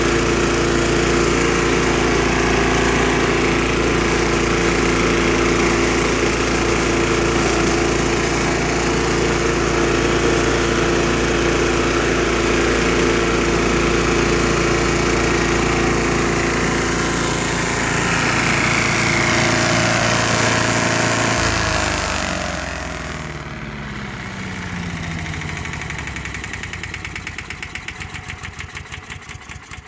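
Craftsman 4-in-1 chipper/shredder yard vacuum's small gas engine running steadily, then shut off about 22 seconds in. The engine and impeller wind down with a falling pitch, their beats slowing as they coast to a stop.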